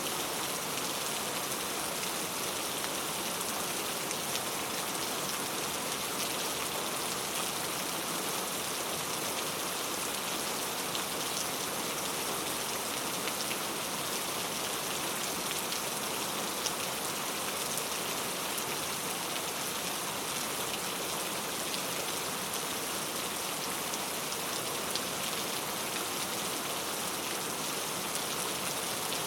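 Steady rainfall: an even hiss of heavy rain with scattered individual drop ticks.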